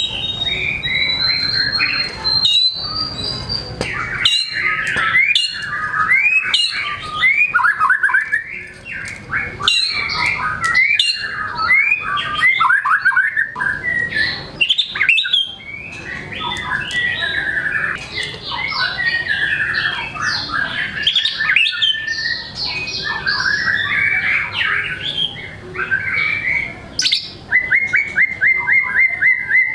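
White-rumped shama (murai batu) singing nonstop in full voice, pouring out a loud, varied string of whistles, warbles and harsh notes, with a fast run of repeated notes near the end.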